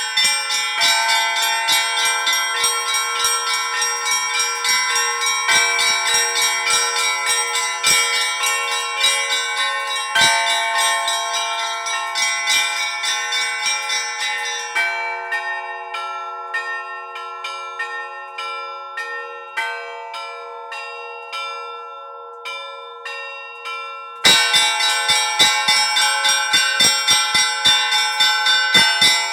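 Church bells chimed in quick succession: a rapid run of strikes, with the bells' tones ringing on and overlapping. About halfway through the deepest bell drops out and the chiming grows quieter, then the full chime returns suddenly near the end.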